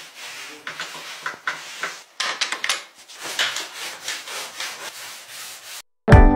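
Gloved hand rubbing raw lacquer into the bare wood of an old wooden chest, a run of rough, uneven swishing strokes. Near the end the rubbing cuts off and loud acoustic guitar music starts.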